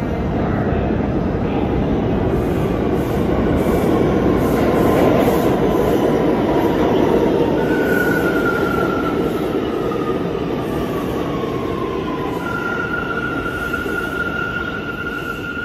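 R179 subway train rumbling into an underground station and slowing. From about halfway a whine falls in pitch as it brakes, and a steady high wheel squeal holds near the end.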